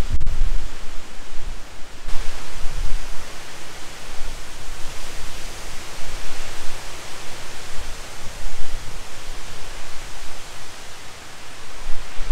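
Steady outdoor rushing noise with no clear tone, growing a little brighter and hissier midway. A low rumble dies away in the first second.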